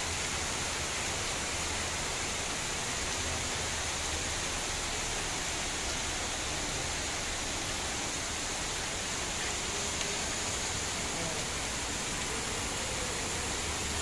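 Heavy rain pouring down steadily: a dense, even hiss with no let-up.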